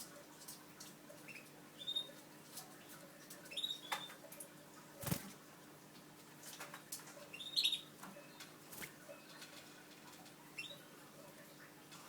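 Newly hatched canary chicks peeping: short, thin, high chirps every second or two, strongest just past the middle. Light clicks and rustles from the nest come in between.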